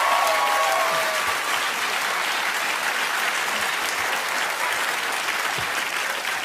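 Studio audience applauding steadily, with a voice calling out briefly at the start.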